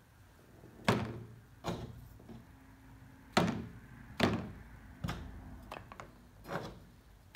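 Small parts from a 1970s Mini Tonka garbage truck, wheels among them, dropped one at a time into a plastic tub of soapy water, each landing with a short knock against the tub. About seven or eight knocks come roughly a second apart.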